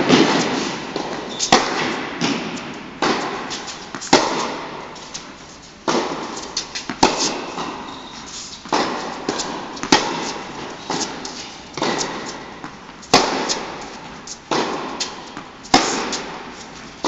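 Tennis rally in an echoing indoor hall: racket strikes and ball bounces on a hard court, a sharp knock about every second or so, each ringing on briefly.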